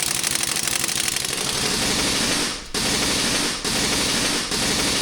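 A power tool hammering rapidly and loudly, broken by brief pauses about once a second in the second half.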